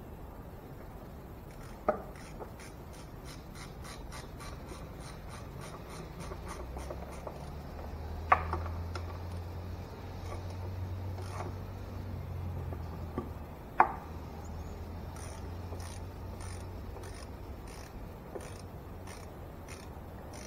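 Socket wrench ratcheting on engine bolts in runs of quick, even clicks that pause in the middle and start again, with three sharp metal clanks of tools on the engine.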